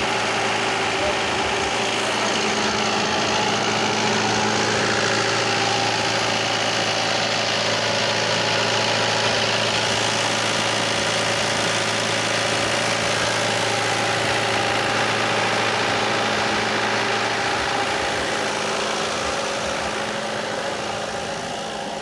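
Generator engine running steadily, a constant low hum powering the DJ sound system before the sound check, easing slightly in level near the end.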